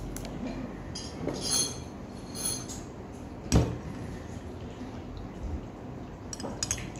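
Metal spoon clinking and scraping against a glass food container: a few light clinks, with one sharper knock about halfway through and more small clinks near the end.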